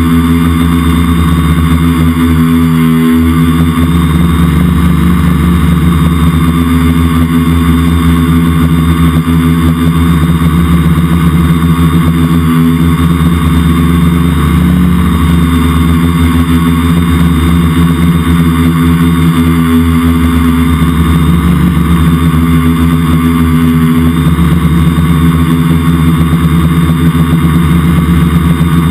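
Multicopter's electric motors and propellers heard up close from a camera on board: a loud, steady whirring drone whose pitch wavers slightly as the craft holds its hover.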